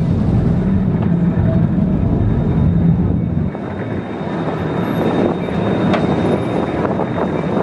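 Boat engine running with a steady low drone that drops away about three and a half seconds in, leaving a rushing noise.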